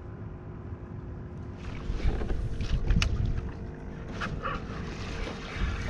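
Water lapping against a plastic kayak hull with wind on the microphone, and the clicks and rattles of fishing tackle being handled. The noise picks up about two seconds in, with a few sharp clicks.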